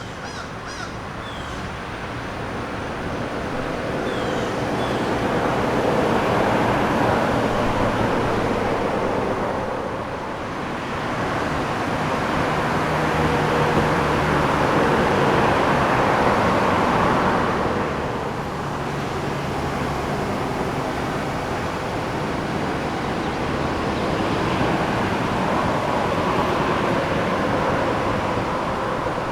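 Road traffic: cars passing one after another, their tyre and engine noise swelling and fading in waves. The louder passes are about a quarter and half way in, the second carrying a steady low engine note. A few faint high chirps come in the first seconds as the sound fades in.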